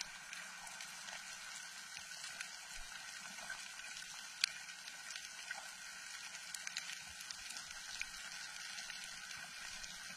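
Faint steady water noise, a soft hiss with scattered small clicks and crackles.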